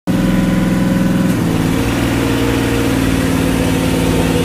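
Hydraulic wheel crusher's power unit running with a steady drone as the press plate lowers onto a car wheel. Its note drops slightly about a second and a half in.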